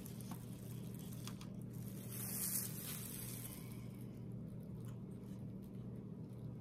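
Faint steady low hum, with a brief soft rustle about two seconds in and a few light clicks.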